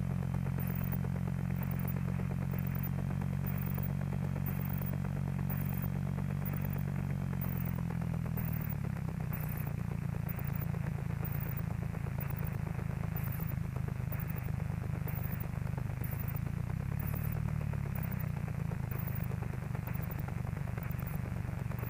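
Van's RV-7's piston engine running steadily at low power on final approach. About eight seconds in its steady tone breaks up into a rougher rumble as the aircraft touches down and rolls out along the runway.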